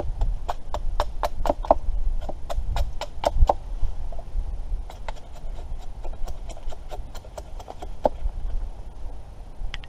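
A quick, irregular run of sharp taps and knocks, dense for about four seconds and then thinning out, over a low wind rumble on the microphone.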